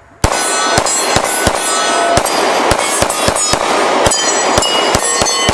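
A SIG P365 XL 9mm pistol firing a rapid string of shots, about three a second, starting a quarter-second in, with steel targets ringing after the hits.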